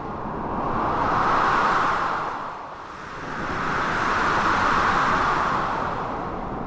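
Storm ambience of blizzard wind and sea waves crashing: a steady rushing noise that surges up twice, easing off for a moment about three seconds in.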